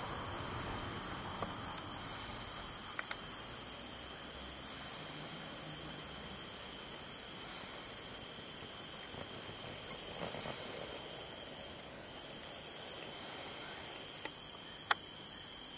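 Night insect chorus, crickets: a steady high trill with a chirping that comes and goes just below it. A single click near the end.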